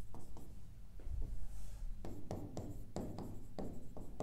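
Stylus tapping and scratching on the glass of an interactive display board while handwriting: a string of short taps and scrapes, more frequent in the second half, over a low steady hum.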